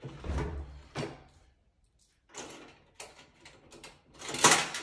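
Orion token-operated vending machine being worked to dispense a pack: knocks and rattles of the mechanism, a short pause, then a run of clattering as a pack is dispensed, loudest near the end.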